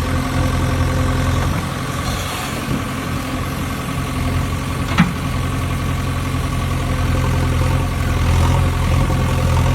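Vehicle engine idling steadily, with one sharp click about halfway through.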